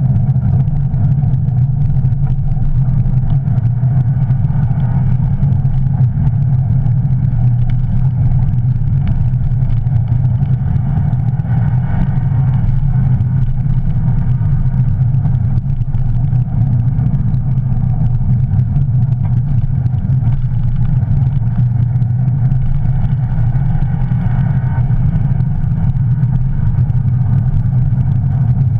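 Rally car on studded tyres driving over snow and ice, heard from inside its cabin: engine and tyre noise as one loud, steady low drone with no let-up.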